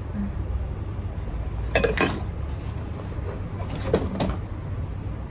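Ceramic bowls clinking and knocking against each other while cardboard packing is handled in a shipping box, with a cluster of sharp knocks about two seconds in and two more around four seconds, over a steady low rumble.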